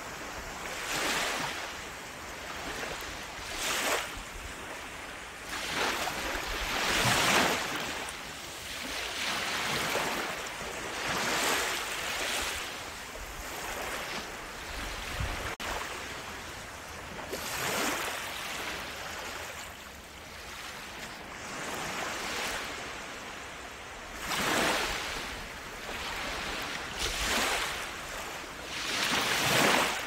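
Sea waves breaking and washing up the shore, one surge after another every two to three seconds in an irregular rhythm, each swelling and then fading away.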